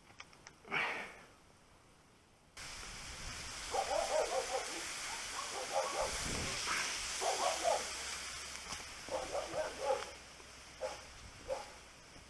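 A dog barking repeatedly in short runs of barks, over a steady hiss that comes in suddenly about two and a half seconds in.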